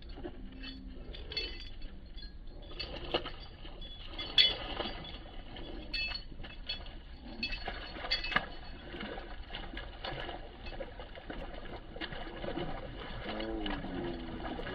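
Siberian husky romping through a muddy puddle: scattered clinks and wet, splashy scuffs.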